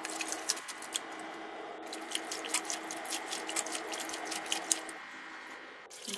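Hand swishing and squeezing gongura (roselle) leaves in a steel bowl of water to wash them: a run of small splashes, drips and squishes that thin out near the end.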